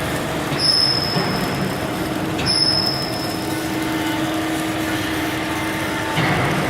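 Hydraulic press brake machinery running with a steady mechanical noise. A short high-pitched whine starts sharply twice, about half a second in and again about two and a half seconds in, and a lower steady tone is held through the middle.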